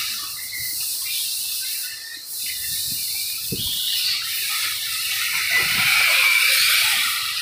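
Electric 1/8-scale RC buggies racing: the high-pitched whines of their electric motors and drivetrains rise and fall over a steady hiss of tyres on the track, growing loudest near the end as the cars pass close.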